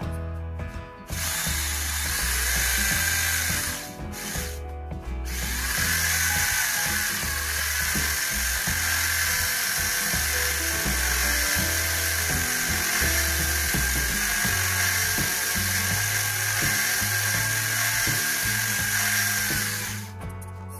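Small electric gearbox motors of a model tugboat's drive running with a high whine and gear buzz. They stop briefly about four seconds in, then run steadily until near the end. Background music plays underneath.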